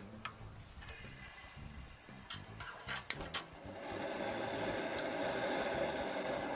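A few sharp clicks, then from about four seconds in a steady hiss, most likely the Camp Chef propane burner running under the fryer.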